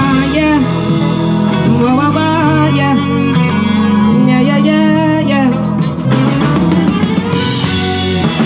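A live band playing: electric guitar and drum kit under a male singer's ad-libbed "yeah" and "wow" vocals, leading into the song.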